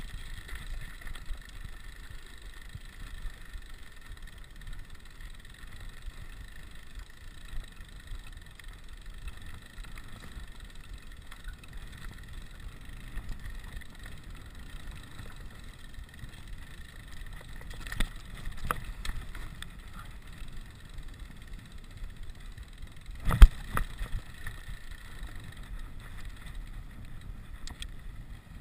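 Rigid 29er mountain bike rolling over a stony gravel track, with tyre noise, rattling from the bike and wind on the microphone. A few knocks sound about 18 to 19 seconds in, and one much louder sharp knock comes about 23 seconds in.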